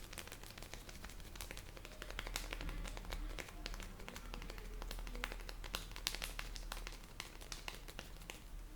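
A barber's hands tapping and patting on a client's head in an Indian head massage: a quick, irregular run of sharp taps that eases off near the end.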